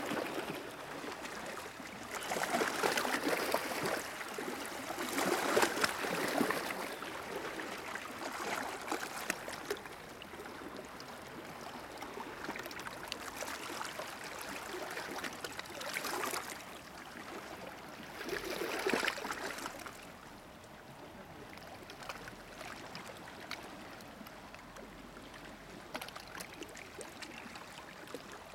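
Small waves lapping and splashing against the rocks along a lakeshore, coming in swells a few seconds apart and quieter near the end.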